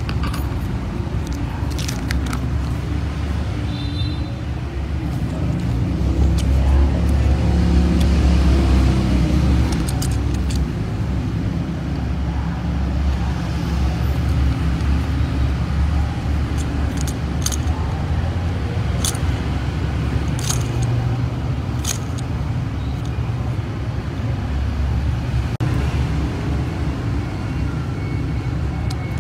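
Plastic toy packaging being handled and opened, with scattered sharp clicks and crackles, over a steady low rumble.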